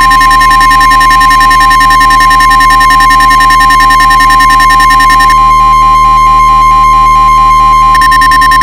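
Mock Emergency Alert System attention signal: one loud, steady alert tone held unbroken, over a synthesizer music bed.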